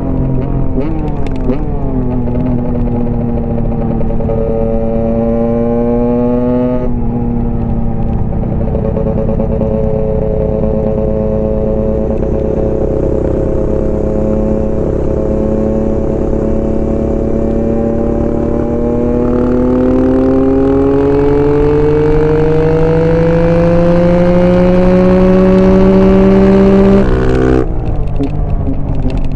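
Husqvarna single-cylinder dirt bike engine under load, its pitch climbing slowly as the bike accelerates and getting louder toward the end. The engine note breaks off suddenly about a quarter of the way in, then climbs again through a long pull, and cuts off sharply near the end.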